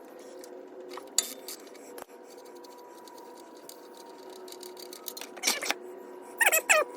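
Scattered light metallic clinks and taps of hand tools on metal over a steady hum. Near the end a cat meows a few times.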